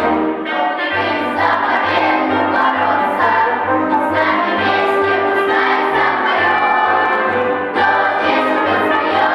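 Children's choir singing a lively song in unison over an instrumental accompaniment with a steady bass beat.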